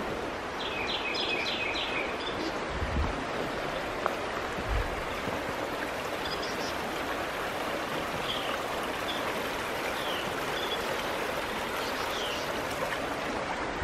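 Steady rushing of a high, flooded creek, with a bird calling over it: a quick run of chirps about a second in and a few short downward chirps later. Two brief low bumps a few seconds in.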